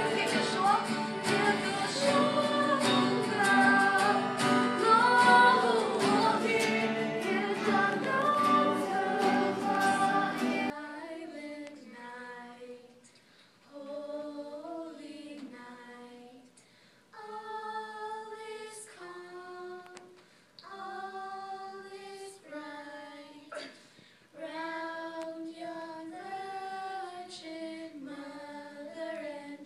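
Worship song with strummed acoustic guitars and several singers, cutting off abruptly about ten seconds in. A small group of voices then sings unaccompanied, more quietly, in short phrases with brief pauses between them.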